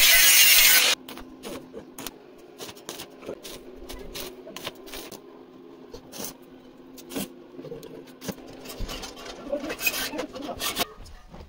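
Angle grinder running against a stainless steel railing tube, cutting off suddenly about a second in. It is followed by scattered light clicks and taps as steel rods are handled and fitted through the railing posts.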